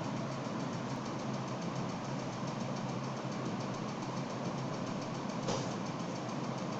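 1 hp Top Air split-unit air conditioner running: a steady low hum under even fan noise, with a brief louder rush of noise about five and a half seconds in.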